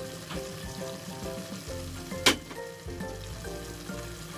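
Sautéed pork and vegetables sizzling in a pan while scallions are added and stirred with a wooden spatula, with one sharp knock of the utensil about two seconds in. Soft background music plays under it.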